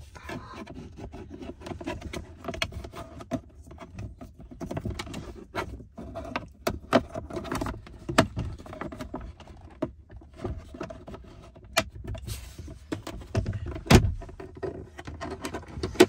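Hyundai Avante AD glovebox and cabin air filter cover plastics being refitted by hand: scattered clicks, knocks and rubbing of plastic trim, with a louder knock about two seconds before the end.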